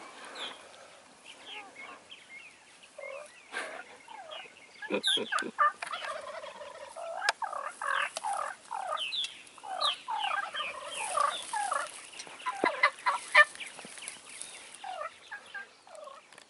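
Wild turkeys calling: a dense run of short clucks and yelps, busiest through the middle, with a few sharp snaps among them.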